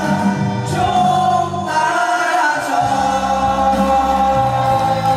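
A group of male voices singing together over a pop backing track with a steady bass line; the bass drops out briefly about two seconds in.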